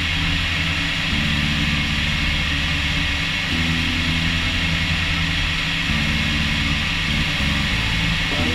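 Light aircraft's piston engine and propeller running steadily in flight, with a rush of wind across a wing-mounted camera.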